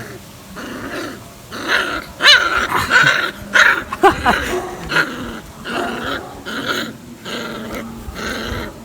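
Kombai puppies growling and snarling in a run of short bursts, with a couple of higher-pitched cries about two and four seconds in. This is the aggression that the character test looks for.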